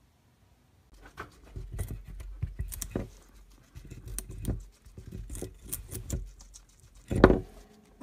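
Hairless guinea pig biting and chewing a raw carrot: irregular crisp crunches starting about a second in, the loudest one near the end.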